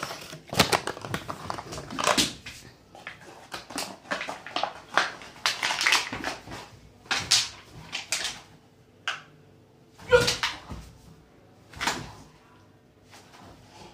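Rottweiler chewing and mouthing a crumpled plastic bottle: irregular bursts of plastic crinkling and crackling, with a short whimper about ten seconds in.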